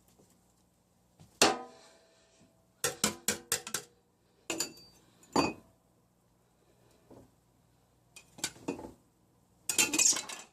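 Dishes and utensils in a kitchen sink clinking and clattering in scattered clusters of sharp knocks, some briefly ringing.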